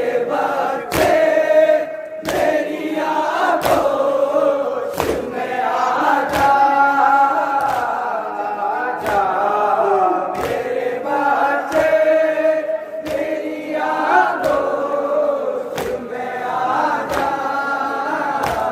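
Men chanting a noha (Urdu lament) in chorus while beating their chests in unison: sharp slaps fall on a steady beat about every two-thirds of a second under the singing.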